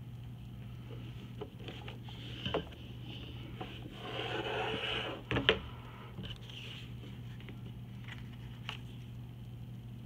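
Paper sheets sliding and rustling on a wooden tabletop as they are gathered up, with a few knocks, the sharpest about five and a half seconds in. A steady low hum runs underneath.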